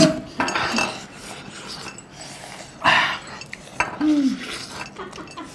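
Eating at the table: hands tearing cooked chicken over a steel plate, with faint clinks and rustling, a short hissing rush about three seconds in, and a brief voiced sound a second later.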